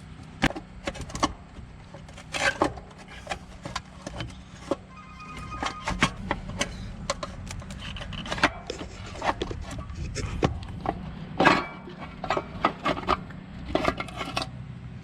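Irregular knocks, clicks and scrapes of a valve cover being worked loose and wrestled off a 1985 Chevy S-10's engine, around a fuel line that will not come off.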